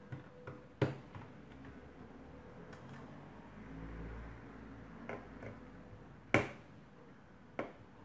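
Sharp clicks and taps of a small screwdriver and the hard plastic laptop case being handled, with louder knocks about a second in, a little after six seconds (the loudest) and near the end, and a few fainter ticks between them.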